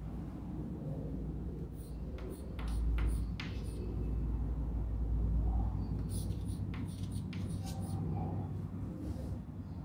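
Chalk scratching and tapping on a chalkboard in clusters of short strokes as a line is written, over a steady low rumble in the room.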